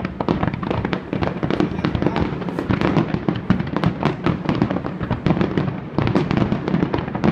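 Fireworks going off in quick succession: a continuous run of bangs and crackling pops, many each second, with no pause.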